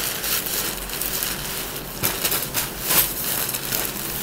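Plastic packaging rustling and crinkling: a poly mailer bag being opened and clothes in clear plastic bags pulled out, with irregular sharp crackles throughout.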